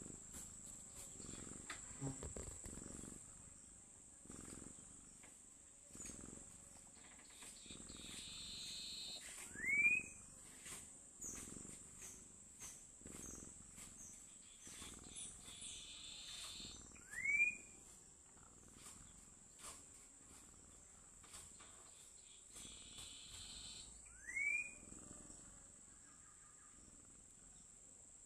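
Domestic cat snoring in its sleep: three breathy snores, each ending in a short rising squeak, about seven seconds apart. A steady high cricket trill runs underneath.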